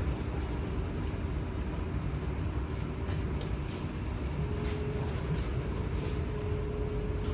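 Kawasaki C751B metro train standing at a station with its doors open, its onboard equipment giving a steady low rumble and hum. A few faint clicks come around the middle, and a faint steady tone joins about four seconds in.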